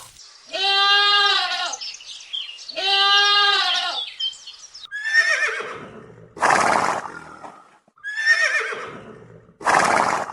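Farm animals calling: two long, steady, pitched calls near the start, then two pairs of harsher, rougher cries.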